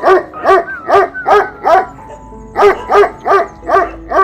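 A dog barking in quick runs, about two to three barks a second: five barks, a pause of about a second, then five more. Steady background music tones sit underneath.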